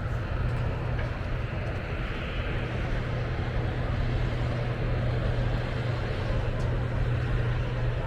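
A motor running steadily: a constant low drone under an even outdoor noise.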